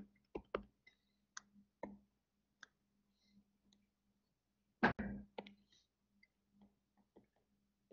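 Faint scattered clicks and taps of a stylus on a tablet or screen during handwriting, with one louder knock about five seconds in.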